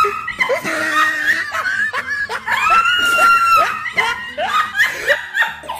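A woman laughing hard and high-pitched. Runs of short, rapid laughs surround a long, shrieking squeal of laughter about two and a half seconds in.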